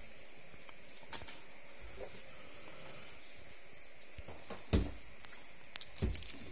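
Quiet room tone with a steady high hiss, broken by a few light knocks about three quarters through, as hands handle the laminated plywood case panel.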